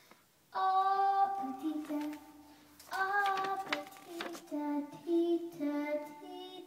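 A young boy singing solo: a long held note starting about half a second in, a second held phrase, then a run of shorter notes that step up and down.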